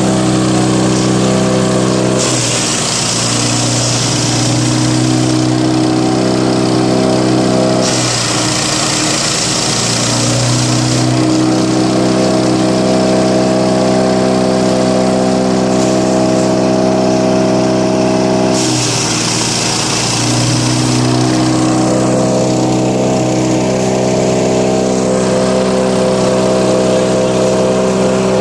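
Wood chipper driven by a 13 HP 192F single-cylinder petrol engine, running at speed throughout. Three long stretches of harsh high hiss come and go as material goes through the cutter. The engine note wavers when each stretch begins and ends.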